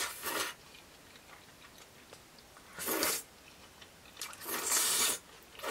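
Thick curry udon noodles slurped up from a bowl in short hissing bursts, several times, the longest and loudest near the end, with quiet chewing between.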